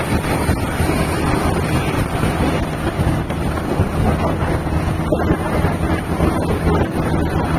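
Steady wind buffeting on the microphone of a moving vehicle, with a low rumble of engine and road noise underneath.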